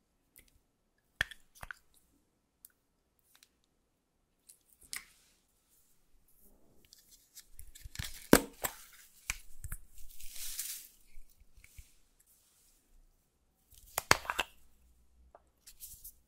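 Hands crumpling and tearing gold foil over a glass dish: scattered crinkling crackles, busiest around the middle, with a loud crack about eight seconds in and a crunchy burst near the end.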